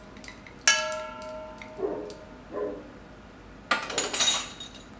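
A spoon clinks against a bowl about a second in and the bowl rings briefly with a clear tone. Near the end comes a second or so of clattering and scraping as the flour is worked into the potatoes in a stainless steel mixing bowl, the loudest sound here.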